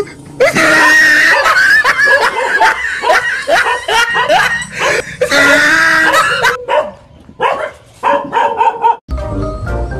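Dog barking and yipping at a stuffed toy tiger, many quick barks and high yelps close together. About nine seconds in they give way to music.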